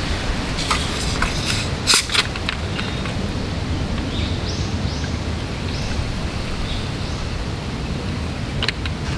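Clear plastic water bottle handled in the hands, with sharp plastic crackles and clicks around one to two seconds in and again near the end, over a steady low outdoor rumble. A few short high chirps come around four to five seconds in.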